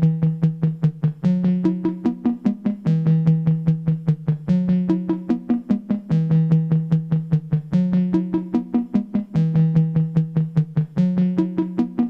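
Modular synthesizer music: a Make Noise 0-Coast bass sequence pulsing about five notes a second in a short phrase that repeats every second and a half or so, with higher sequenced notes from a Rings resonator above it.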